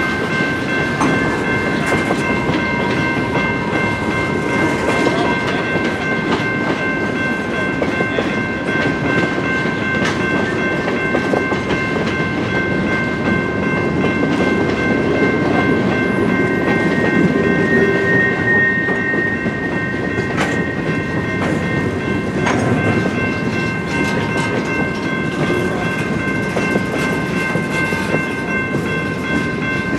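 Freight train of tank cars and covered hoppers rolling past at close range, wheels clacking and rumbling over the rail joints. A steady high ringing of several tones sounds above the rumble throughout.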